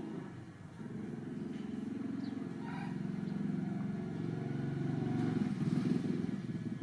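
A low, steady engine-like drone that grows louder about five seconds in.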